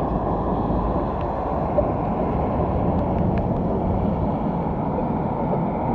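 Steady, loud street traffic noise, a dense low rumble loud enough to drown out a metal detector's audio. A few faint ticks sound in the middle.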